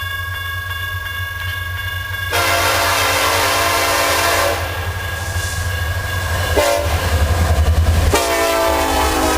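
Diesel freight locomotive's air horn sounding a long blast, then a short one, then another long one, over the low steady rumble of the locomotive.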